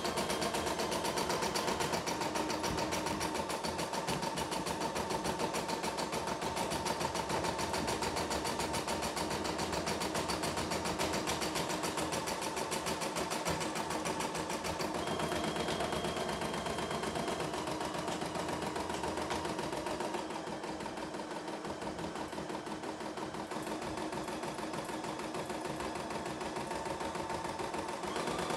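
CNY E960 computerized embroidery machine stitching out a design, its needle mechanism running in a rapid, even rhythm. It goes slightly quieter for a few seconds past the middle.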